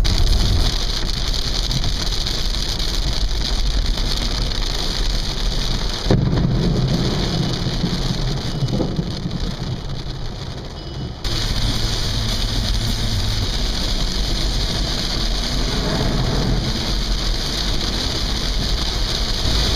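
Rain and wet-road tyre hiss, heard inside a moving car in a thunderstorm. About six seconds in the hiss drops away while a low rumble of thunder starts suddenly and fades over about five seconds. The hiss then returns and runs steadily.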